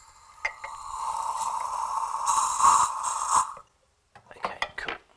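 Water rushing out through the newly plumbed copper pipework of an exposed bidet valve, the valve opened to show the supply flows. It runs for about three and a half seconds, then shuts off, followed by a few light clicks.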